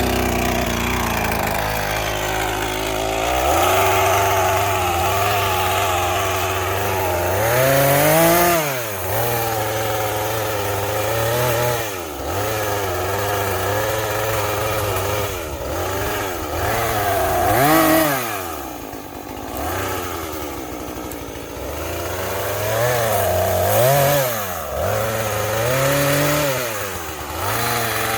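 Small chainsaw cutting brush, its engine revving up and dropping back several times as the throttle is squeezed and eased.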